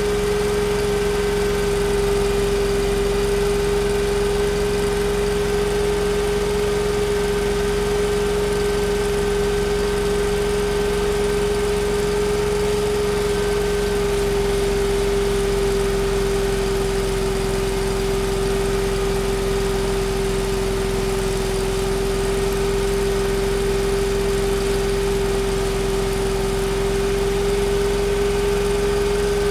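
Factory machine running steadily: a constant mid-pitched whine over a low hum. The whine sags slightly in pitch about halfway through and comes back up near the end.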